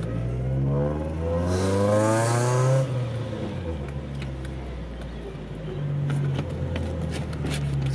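Nissan Gazelle's SR20DE twin-cam four-cylinder engine, heard from inside the cabin, revving up as the car accelerates, its pitch rising for about two seconds. The revs drop about three seconds in, and the engine then runs steadily at lower revs.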